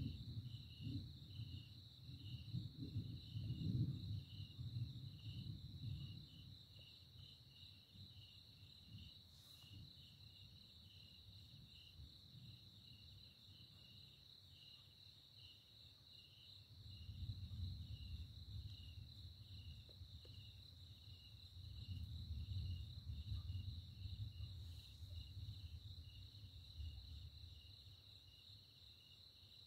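Distant thunder rumbling low and long, twice: one rumble fading out about six seconds in, another rising about seventeen seconds in and dying away some ten seconds later. Under it, a steady night chorus of insects with an evenly pulsing chirp.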